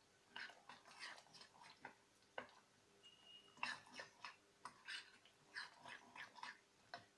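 Metal spoon stirring thick semolina and curd batter in a glass bowl: faint, irregular clicks and wet scrapes, a few a second.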